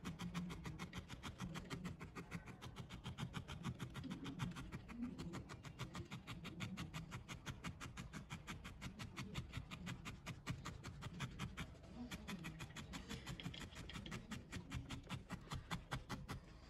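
Felting needle stabbing rapidly and repeatedly into wool over a foam pad, a fast even run of soft crunching ticks several times a second, as fresh wool is felted onto a needle-felted dog's head.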